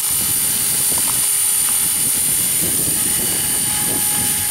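Battery-powered radio-controlled helicopter in flight: its electric motor and rotor make a steady, high-pitched whine.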